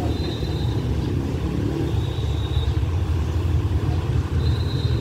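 Low, steady rumble of an approaching diesel-hauled passenger train, with three short high-pitched tones over it.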